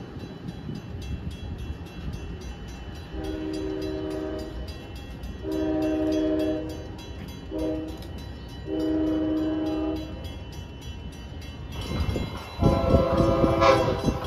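Train air horn sounding four blasts, long, long, short, long: the standard grade-crossing signal. A louder horn with a different, higher chord blows once near the end, over a low rumble of the train.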